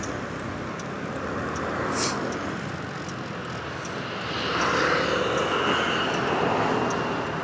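Steady motorcycle riding noise from the engine, wind and road, picked up by a small lapel mic inside an open-face helmet. It swells louder for a couple of seconds about halfway through.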